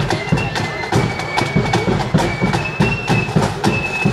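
Marching flute band playing a tune, the flutes' high held notes over a steady marching beat of drums.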